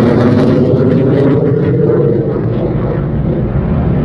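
Loud, steady noise of military jet aircraft engines, its higher hiss gradually dying away while the deep rumble stays.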